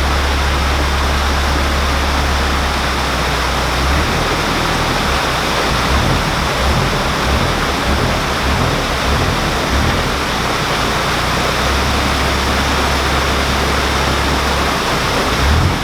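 Loud, steady rush of water pouring through the open paddles of a canal lock, with a low rumble underneath that drops away around the middle and returns.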